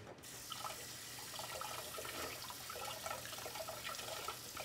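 Kitchen sink faucet running in a steady stream while a knife is rinsed under it.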